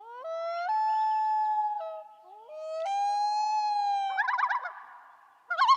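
Long wailing calls that slide up in pitch in steps and hold, twice over, then a quick warbling tremolo from about four seconds in and again near the end.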